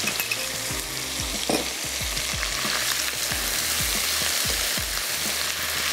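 Boiled mutton pieces and freshly added ginger-garlic paste frying in hot oil, a steady sizzle, with a spatula stirring in the pan.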